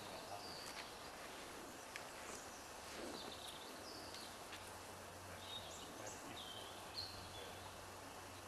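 Faint outdoor ambience with small birds chirping in short, scattered calls over a faint steady low hum.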